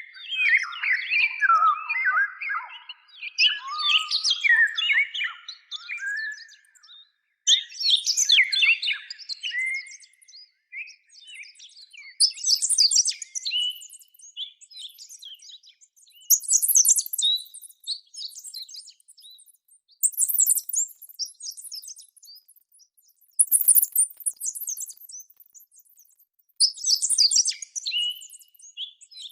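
Chirping, twittering bird-like calls made as Daemonosaurus sound effects, coming in bursts of a second or two every few seconds. The first bursts are lower, and the later ones are higher-pitched.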